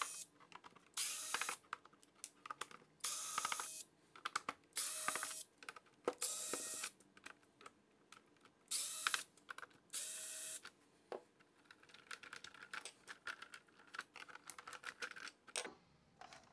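Small electric screwdriver whirring in about seven short bursts of under a second each as it backs screws out of a plastic keyboard case. In the last few seconds come light clicks and taps as the case is handled.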